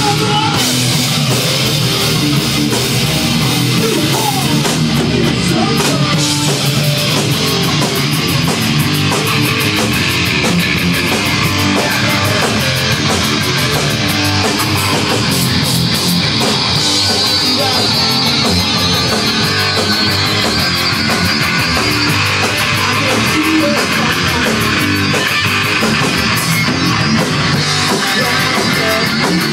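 Live rock band playing loud and steady without a break: two electric guitars, bass guitar and a drum kit together.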